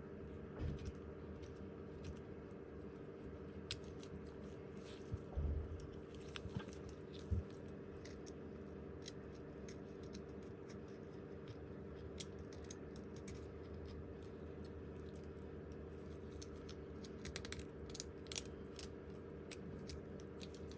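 Small clicks, ticks and scrapes of hand tools and parts being handled while a phone is worked on, with a few soft bumps. A steady low electrical hum runs underneath.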